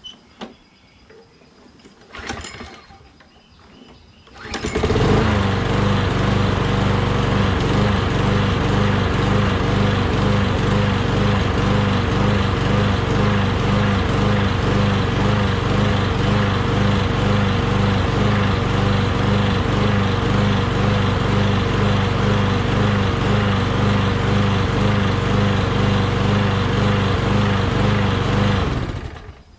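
A Toro Recycler lawn mower's small engine, pull-started, catches about four and a half seconds in and runs until it is shut off near the end. Its speed hunts up and down over and over: surging, which the owner puts down to the cold start, the choke flap not yet fully open until the muffler warms up.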